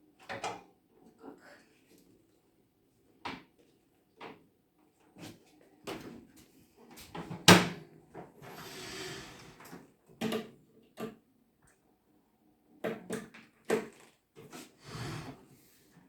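Handling a new microwave oven while its power cord is unwound: scattered light knocks and clicks, with one loud sharp click about halfway through followed by a couple of seconds of rustling.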